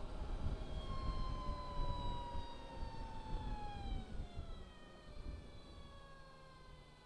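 Energica Experia electric motorcycle's drive whine, one pitched tone that slowly falls as the bike slows down, over wind rumble on the microphone that fades after about five seconds.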